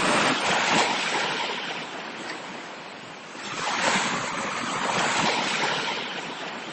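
Ocean waves surging and washing, two swells that rise and fade, the second building about three and a half seconds in.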